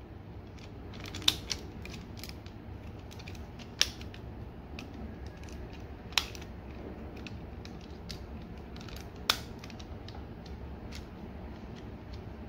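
Plastic parts of a Transformers Masterpiece MP-26 Road Rage figure clicking and snapping as they are pressed back together into car mode: scattered small clicks with four sharper snaps.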